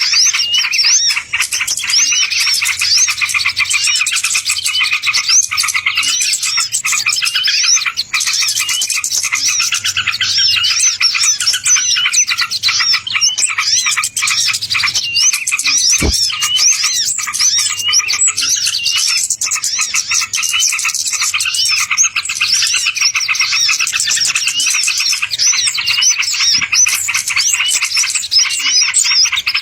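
A dense chorus of small songbirds chattering: many rapid, high, overlapping chirps with no break. There is a single brief click about halfway through.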